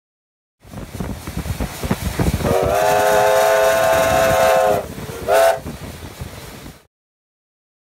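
Steam locomotive 3016 running past with its exhaust beating, then sounding its steam whistle: one long blast of several notes together lasting about two and a half seconds, then a short blast, before the sound cuts off abruptly.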